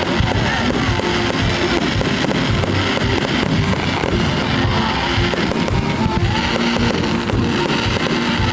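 Guitar-led music playing steadily, with the crackle of a fireworks display beneath it.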